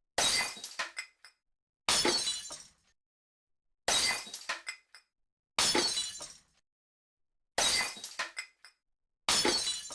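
Glass smashing six times, about every two seconds: each a sudden crash that fades over about a second into a few small clinks of falling shards, with dead silence between.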